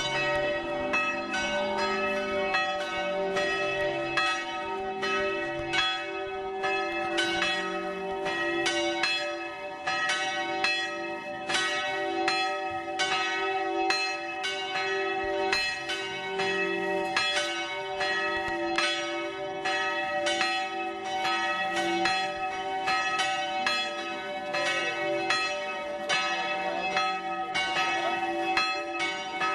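Several church bells pealing together, a steady run of overlapping strokes of a few different pitches ringing on without a break.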